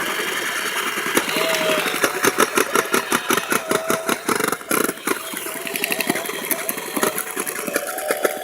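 Toy chainsaw running: a rapid clattering, engine-like rattle with a wavering whine, as its blade is pressed into a crack in the ground.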